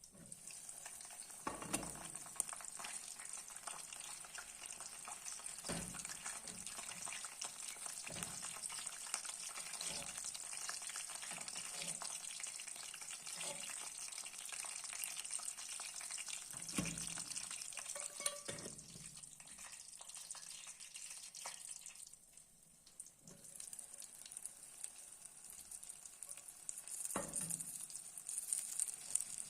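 Food sizzling in a hot pan, a steady hiss with a dozen or so short knocks scattered through it, as from stirring. The sizzle drops away briefly a little past two-thirds of the way, then comes back.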